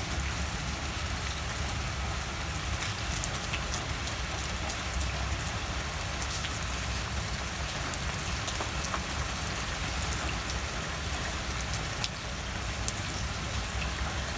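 Steady rain falling, with scattered sharper drop ticks and one louder tick about twelve seconds in.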